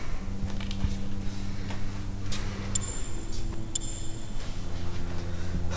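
Room tone: a steady low hum with faint ticking clicks over it, and a brief thin high tone near the middle.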